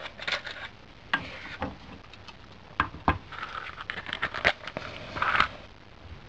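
A wooden matchbox being handled: the matches rattle and the box clicks a few times. Then, about five seconds in, a match is struck on the box, a short rasping scrape as it catches and flares.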